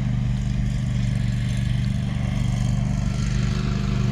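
Steady low engine drone, a motor running at an even speed with no change in pitch.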